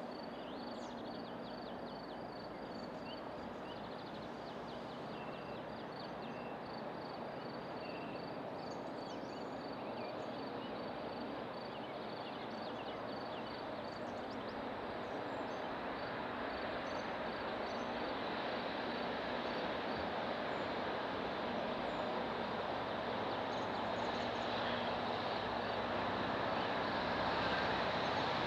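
Distant Slovenian class 664 diesel locomotive, with its EMD two-stroke engine, running towards the listener with a freight train, its drone growing steadily louder as it approaches. Birds call over it, one with an evenly repeated high note.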